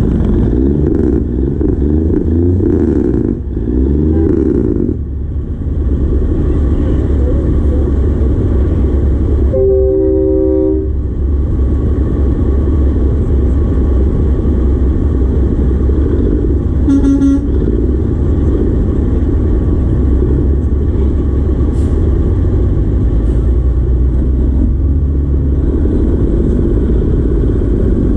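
Diesel semi-truck engines rumbling as big rigs roll slowly past, with a truck horn blast lasting over a second about ten seconds in and a shorter, higher horn toot around seventeen seconds.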